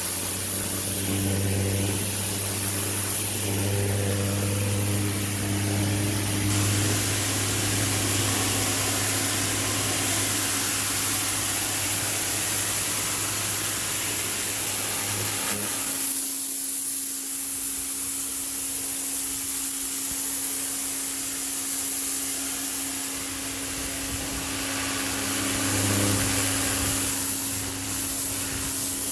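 Greenworks 2000 psi electric pressure washer running, its motor and pump humming steadily under the hiss of water spraying from a spinning turbo nozzle onto concrete. About halfway through, the pitch of the hum shifts and a steadier, higher tone takes over while the spray keeps going.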